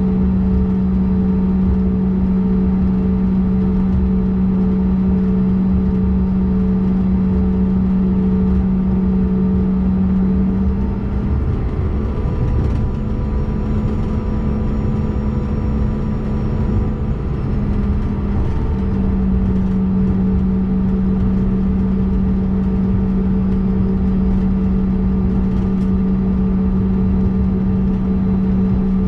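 Cabin drone of a CRJ-200 regional jet taxiing, with its rear-mounted GE CF34 turbofans at low taxi power giving a steady, loud hum. About halfway through, the hum shifts slightly in pitch and dips a little in level for several seconds, then settles back.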